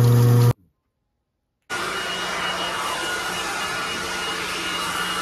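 A loud steady hum cuts off abruptly about half a second in. After about a second of silence, a cordless battery-powered leaf blower comes in running at a steady speed, an even rush of air with a faint high whine.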